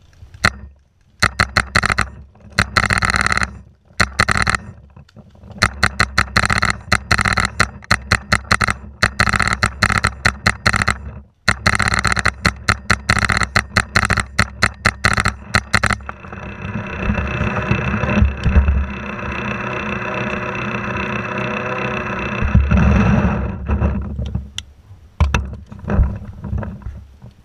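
Macdev Clone VX electronic paintball marker firing rapid strings of shots, with short pauses between strings, for about the first sixteen seconds. Then a steady rushing noise for several seconds, and a few scattered shots near the end.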